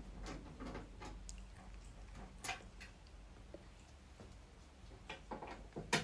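Faint, irregular small clicks and ticks of a screwdriver loosening the top screws on a washing machine's front panel.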